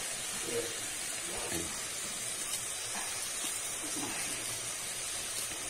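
Chopped calabresa sausage, tomato and corn sizzling steadily in a pot on a gas burner as the sauce cooks.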